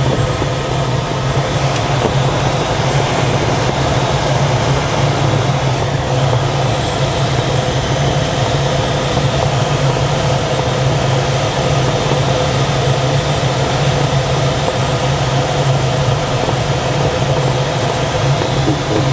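Steady rush of airflow with a low, even hum inside the cockpit of a DG-505 two-seat glider on final approach, its airbrakes extended.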